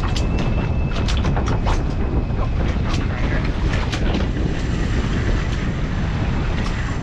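Wind buffeting the microphone over the low, steady running of a boat's twin outboard motors under way, with a scatter of short sharp clicks in the first few seconds.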